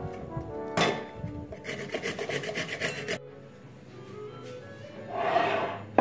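A zucchini being grated on a stainless steel box grater: quick, rhythmic rasping strokes that stop abruptly about three seconds in. Background music plays throughout, and a short rushing noise comes near the end.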